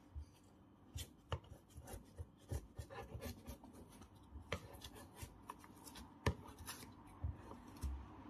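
Light hand rubbing and scraping at a refrigerator freezer's thin aluminium tubing around a refrigerant leak point, done slowly and gently, with scattered small taps and clicks.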